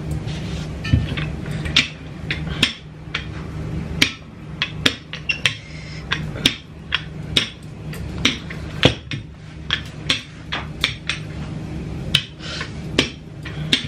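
Rolling pin rolling out dough on a countertop mat, with sharp irregular clicks and knocks a few times a second as the pin works back and forth, over a steady low hum.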